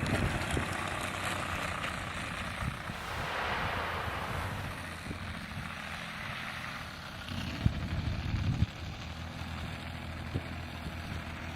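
Twin-cylinder two-stroke petrol engine (Desert Aircraft DA-70) of a large RC aerobatic plane running with a steady drone that swells and fades about three to four seconds in. A cluster of low thumps comes about eight seconds in.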